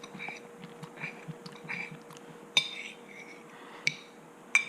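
Metal cutlery clinking against a plate while eating: soft scattered clicks, then three sharp ringing chinks in the second half.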